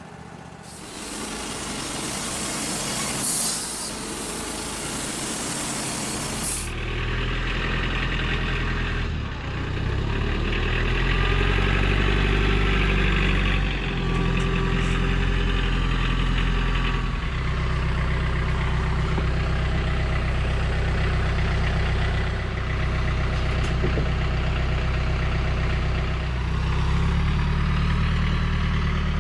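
A broad hiss for about the first six seconds, then a John Deere compact tractor's diesel engine running, its pitch rising and falling several times as it works the front loader.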